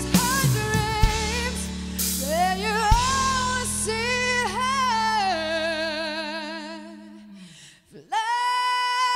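A woman singing with a band behind her: long held notes with vibrato over bass and drums. Around seven seconds in the backing fades away and, after a brief pause, she comes back in on a new long held note.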